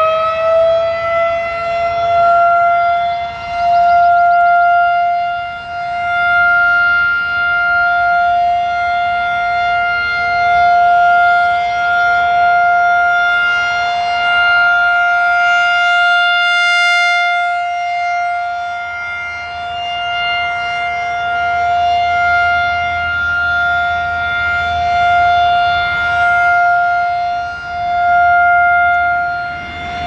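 Federal Signal 2001-SRNB rotating electromechanical warning siren sounding its steady full-alert test tone. It reaches full pitch in the first couple of seconds and then holds one steady note, swelling and fading about every five seconds as the rotating horn sweeps past.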